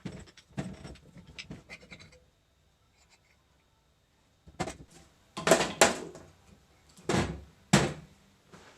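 Metal tools and hydraulic valve parts being handled during disassembly: light clicks and rattles, a short lull, then about five sharp metallic knocks in the second half.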